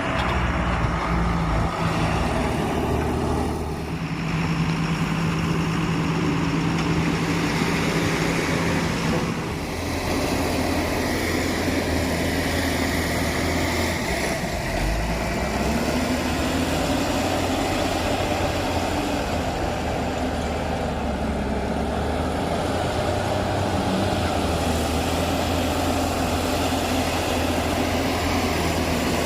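Diesel engine of a Tata backhoe loader running steadily while it works, its note dropping and rising a few times.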